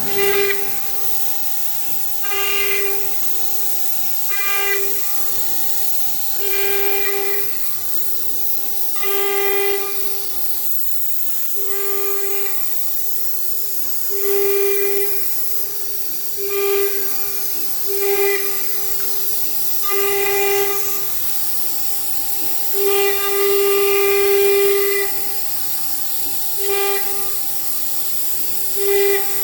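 CNC router running with a steady high hiss and whine. Every second or two its tone swells for a moment, with bright overtones, as the bit works the material.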